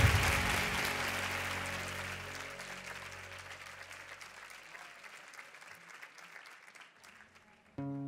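Studio audience applause and the tail of the intro music fading away steadily to near quiet. Near the end an acoustic guitar starts playing single plucked notes.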